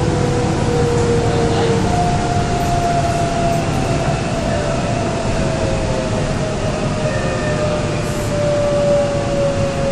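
Cabin noise of a Korail Line 3 3000-series subway train pulling into a station: a steady rumble of wheels and running gear, with an electric motor whine slowly falling in pitch as the train brakes.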